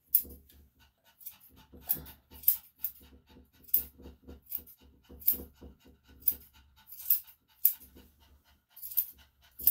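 Grooming scissors snipping hair close to a dog's eyes, a short sharp snip every second or so, while the dog pants steadily.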